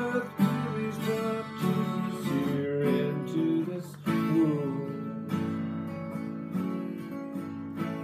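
Acoustic guitar strummed, chords ringing on between strokes.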